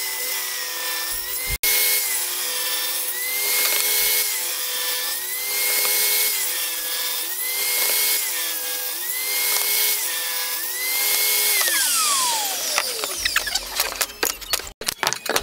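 Table saw running and ripping plywood strips: the motor's whine sags in pitch each time the blade takes a cut, every second or two, and recovers between cuts. About twelve seconds in the saw is switched off and its pitch glides down as the blade spins down, followed by knocks of wood pieces being handled.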